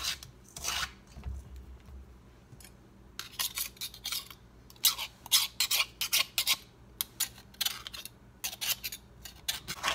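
Metal pastry blender cutting butter into a crumbly flour-and-sugar topping in a stainless steel bowl, a soft gritty scraping. From about three seconds in comes a run of short, sharp metallic clicks and scrapes, a few a second, as a knife scrapes the clogged blades clean against the bowl.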